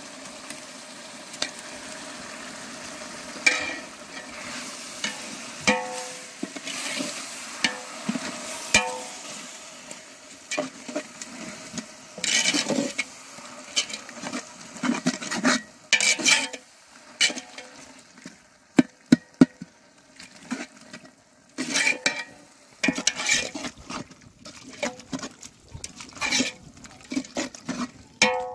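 Perforated metal ladle stirring and scraping through a pot of onion-tomato masala frying in oil, with repeated metallic scrapes and clanks against the pot over a steady sizzle. The freshly added ginger-garlic paste is being fried into the base.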